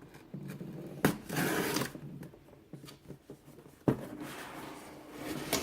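A cardboard subscription box being opened and its contents handled: rustling and scraping, with three sharp knocks or clicks.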